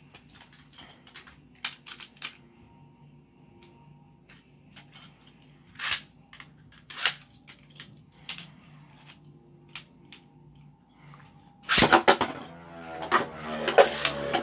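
Scattered small plastic clicks as Beyblade Burst tops and launchers are handled, then about twelve seconds in two tops are launched into the plastic stadium: a sudden loud rip followed by the whir and clatter of the spinning tops.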